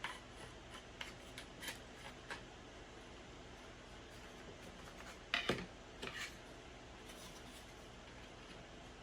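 Small clicks and taps of thin wooden model pieces being handled and pressed into place, with a louder quick double knock about halfway through.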